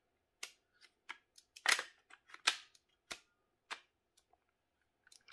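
Separate sharp clicks and knocks of an airsoft Vz61 Scorpion's lower assembly being slid and pressed into its upper receiver, about eight in all, the loudest a little under two seconds in and at two and a half seconds.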